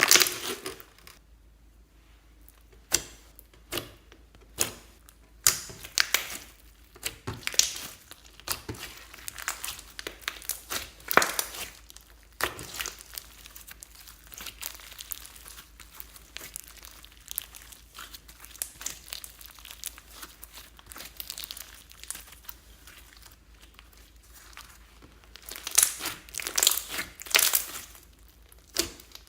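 Glossy slime being mixed and squeezed by hand, making irregular crackles and clicking pops as air pockets break. A denser run of loud crackles comes near the end.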